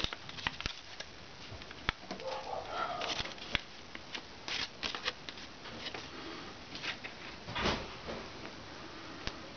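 Map-printed paper of a pinwheel rustling and crinkling as it is folded and handled, with many small sharp clicks and one louder rustle about three-quarters of the way through.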